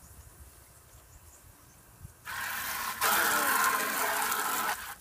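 Garden hose spray nozzle spraying water into an empty plastic bucket. The spray starts about two seconds in, gets louder a second later and stops suddenly near the end.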